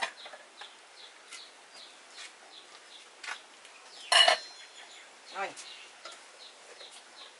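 Kitchenware being handled: a metal pot lid and bowls clinking on a wooden table, with a few light clicks and one loud metallic clank about four seconds in that rings briefly. A short falling call follows a second later.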